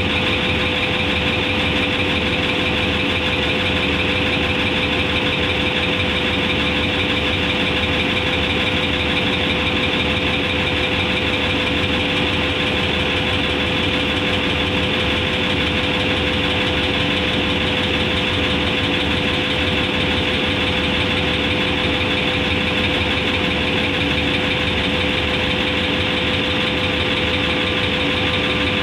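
Hitachi diesel-electric locomotive standing with its diesel engine idling, a steady unchanging hum with a strong single tone over a low rumble.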